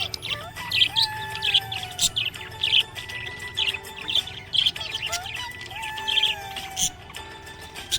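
Small pet parrots chirping: short high chirps repeated about one to two a second.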